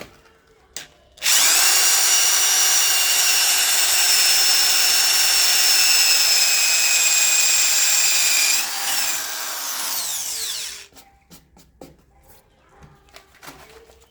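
I Bell SD 12-75 electric screwdriver-drill running at full speed with a steady high-pitched whine as it drills, starting about a second in. About two-thirds of the way through it slows, its pitch falling, and it stops; a few light clicks and knocks follow.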